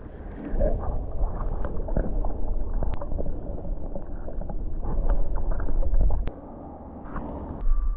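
Wind rumbling on the microphone over water sloshing and gurgling among tide-pool rocks, with scattered small clicks and knocks. It drops away for about a second and a half after six seconds, then returns.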